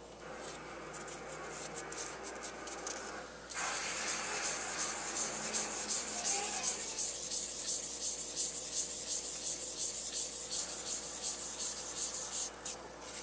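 A wipe rubbing back and forth across the copper base of a CPU cooler, scrubbing old thermal compound out of its grooves. Soft at first, then about three and a half seconds in it turns to brisk strokes, about three a second, that stop near the end.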